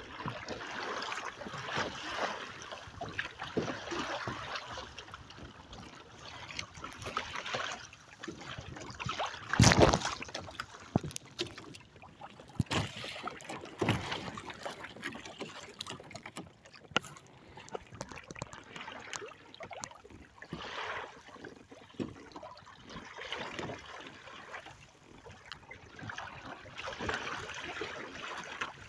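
Choppy water splashing and rushing along the hull and outrigger float of a Hobie sailing kayak under way, with one loud splash about ten seconds in.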